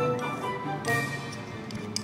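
Soft background music with sustained melodic notes, with a brief rustle about a second in and a sharp small click near the end.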